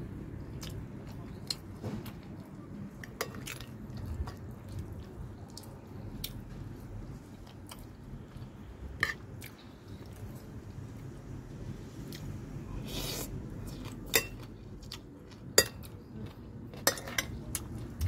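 A person eating green papaya salad: chewing and biting, with a spoon clinking against the plate. Scattered sharp clicks, the loudest few near the end.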